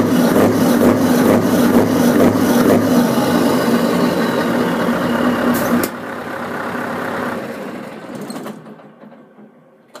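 Scania V8 diesel truck engine idling steadily, then shut off about six seconds in and running down to quiet over the next few seconds.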